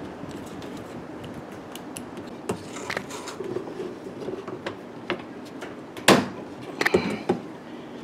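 Hands working a suspension rod and the plastic tub inside a top-loading washing machine: scattered knocks and clicks of plastic parts. The loudest knock comes about six seconds in, followed by a few more clicks.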